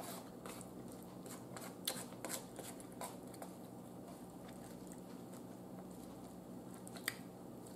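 A metal fork clinking and scraping faintly against a plate, a few short clicks spread through, the sharpest near the end, with soft chewing.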